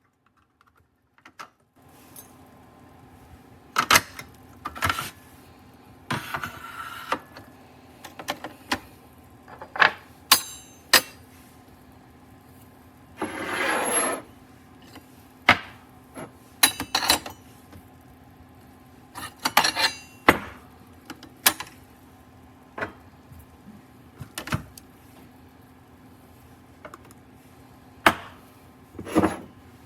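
Objects handled on a counter: scattered clicks, knocks and clinks over a steady low hum, with one rushing, rubbing noise lasting about a second midway.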